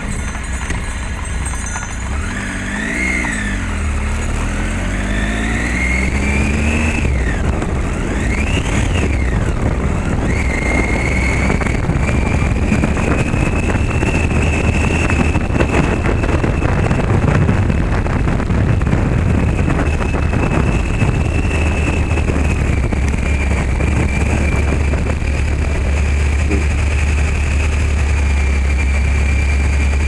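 Motorcycle engine running steadily while riding, heard from the bike with wind and road noise. Oncoming vehicles pass by in the first ten seconds, and a steady high whine runs through the rest of the ride.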